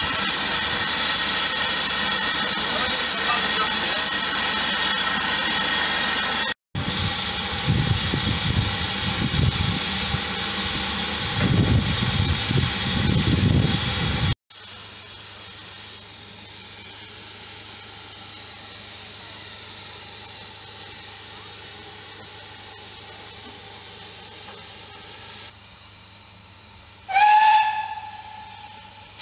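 BR Standard Class 4MT steam locomotive 76084 standing with steam hissing loudly, the sound cut off briefly twice. After a quieter stretch, the locomotive's steam whistle gives one loud blast near the end, which rises in pitch at its onset and then fades: the signal that the train is about to depart.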